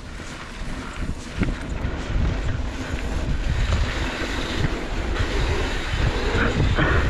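Wind buffeting the microphone over a low rumble and rattle from a mountain bike riding a downhill dirt trail, growing louder as the bike picks up speed.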